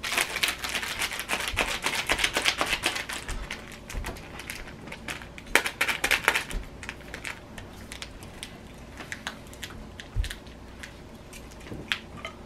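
Small plastic seasoning sachets from an instant-noodle cup rattling and crinkling in the hands as they are shaken. There is a dense, rapid crackle for about the first three seconds, then scattered crackles.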